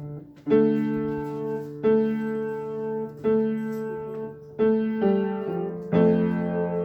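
Piano or electric keyboard playing slow held chords, a new chord struck about every second and a half, five in all.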